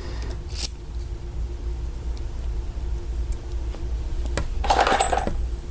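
Small metallic clicks and handling of a key and padlock cylinder parts, with a sharp click about half a second in and a louder short rattling scrape near the end.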